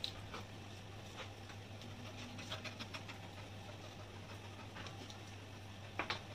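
Quiet eating by hand: soft scattered clicks from chewing and from fingers working rice on a steel plate, over a steady low hum. A pair of sharper clicks near the end is the loudest.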